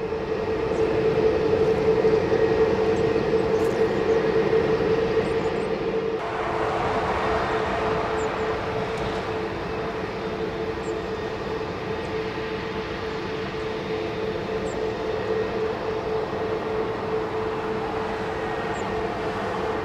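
Airbus A320neo's CFM LEAP-1A turbofans running at low thrust as the airliner taxis: a steady whine over a rushing hum. The rush thickens about six seconds in.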